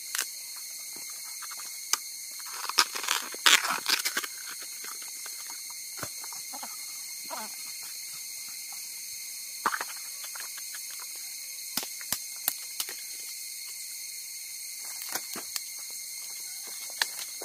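Fresh bamboo shoot being husked by hand: the tough outer sheaths tear and crack off in scattered bursts, busiest about three to four seconds in, with single sharp snaps later on.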